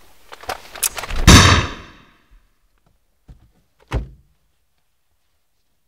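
Car door: a few clicks, then a heavy slam about a second in that rings out briefly, and a second sharp thud near the four-second mark.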